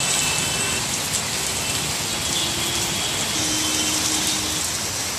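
Torrential rain falling on a road: a steady, even hiss of heavy downpour.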